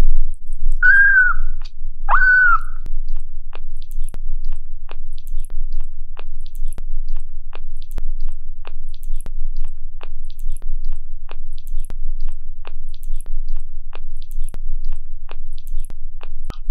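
Two short mewing calls, about a second in and again a second later. These are followed by steady wet suckling clicks, about two or three a second, as a baby sugar glider sucks milk from a feeding-bottle nipple. A low steady purr runs underneath.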